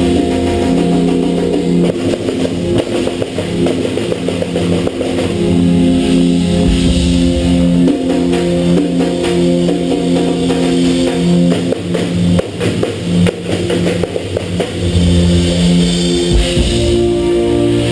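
A band playing live: guitar holding sustained chords over a drum kit.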